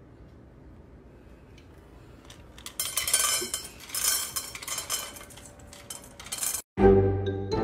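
Dry kibble pieces clattering into the stainless steel bowl of an automatic pet feeder: a rapid rattle of small hard pellets on metal that starts about three seconds in and lasts around four seconds. Music cuts in just before the end.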